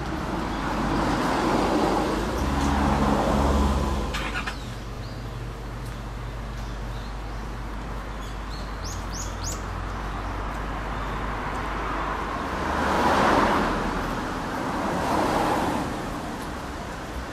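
Street ambience: road traffic passing, with cars' engines and tyres swelling and fading, once early on and again near the end. A few short bird chirps come in between.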